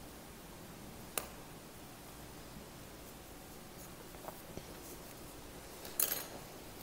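Faint handling sounds of hand knitting: wooden knitting needles tapping and yarn rubbing through the fingers, with a few soft clicks and a louder short clatter near the end.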